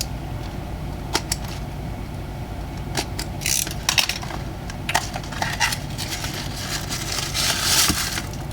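A small cardboard blind box being opened and its paper insert handled: scattered sharp clicks and taps with a few short bursts of crinkling, over a steady low hum.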